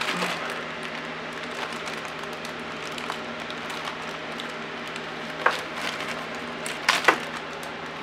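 Plastic bag crinkling as a small brass lock is unwrapped by hand, with a few short, sharp crackles in the second half, over a steady low hum.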